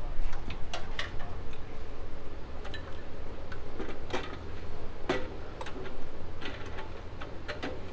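Irregular metal clicks and light knocks as a chrome supercharger scoop is set onto the blower and worked into place, over a low steady hum.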